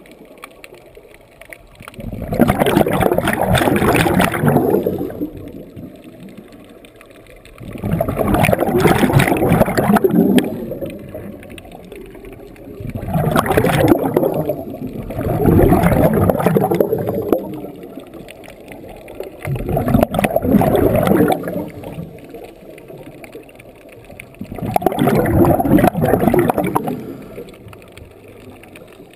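Scuba diver breathing through a regulator underwater: a brief hiss on the inhale, then a gurgling rush of exhaled bubbles lasting about two seconds, repeating about every five seconds.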